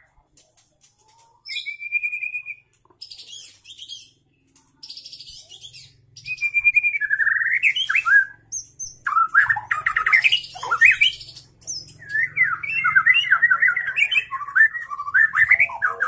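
Young white-rumped shama (murai batu trotol) singing: after a short pause, a held whistle, then high scratchy notes. From about six seconds in comes a fuller song of whistled sweeps and quick runs of notes.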